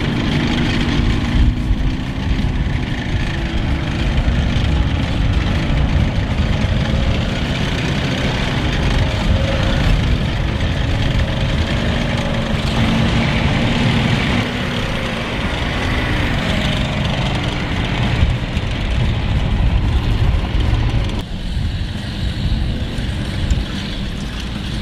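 WWII armoured vehicles, a tank and a half-track, roaring past over a dusty dirt track: a heavy engine rumble whose pitch rises and falls as they speed up and slow down, with a rough clatter over it.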